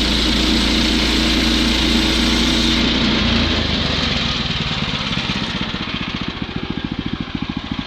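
Small gas engine of a portable sawmill running at high throttle, then throttled down about three seconds in to a slow idle with its separate firing pulses audible.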